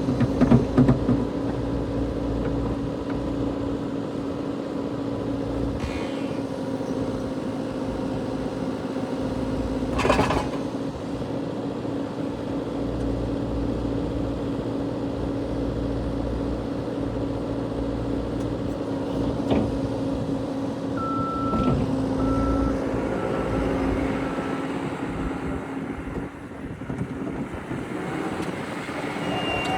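Cat 420D IT backhoe loader's diesel engine running steadily, with a sharp knock about ten seconds in. Later a backup alarm beeps several times as the machine is driven.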